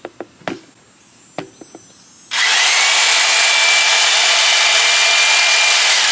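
A few clicks as a plug is pushed into a power strip. About two seconds in, an old corded jigsaw is switched on and runs free, loud and steady with a high whine, powered from a 2,000-watt inverter running off a solar battery bank.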